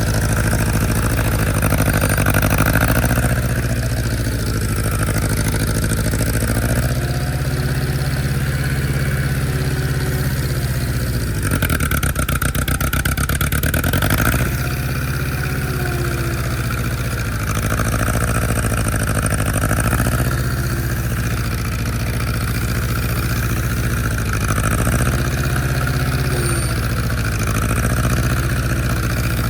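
Allis-Chalmers D17 tractor engine running while loading hay bales, its speed rising and falling with the work and dipping briefly about halfway through.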